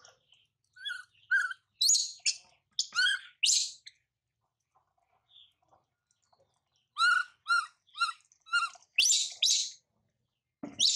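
Baby macaque giving short, high chirping squeaks, each dropping in pitch, in two quick runs with a pause of about three seconds between.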